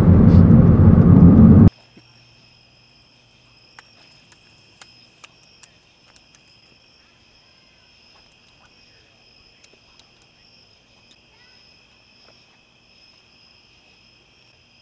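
A loud low rushing noise cuts off abruptly about two seconds in. It gives way to a steady chorus of crickets trilling on two high pitches, with a few faint ticks a little later.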